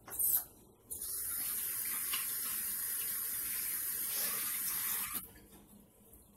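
Kitchen sink faucet running in a steady stream for about four seconds, turned on about a second in and shut off abruptly. A brief sharp noise comes just before the water starts.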